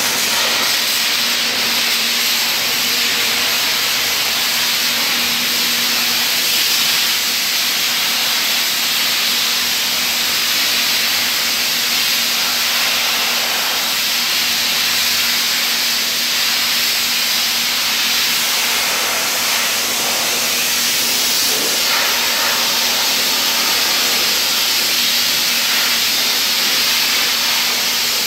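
Abrasive blasting nozzle hissing loudly and steadily as it strips salt-corroded rust from the steel body of a truck salt spreader, with a faint low hum underneath.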